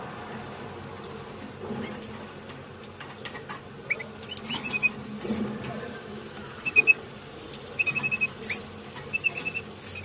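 Canaries chirping: short, high squeaky chirps in quick runs from about four seconds in, over a faint low steady hum.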